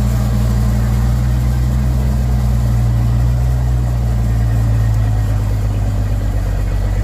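Heavy vehicle engine idling steadily at a low, even pitch.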